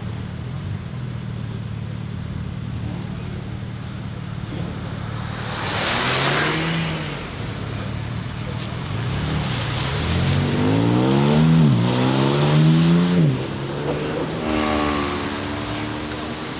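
Engine of an 800 hp single-turbo BMW M3 G81 Touring, its S58 straight-six accelerating hard: a low drone, a short burst of noise about six seconds in, then revs climbing through two quick upshifts, loudest around the shifts, before dropping away near the end.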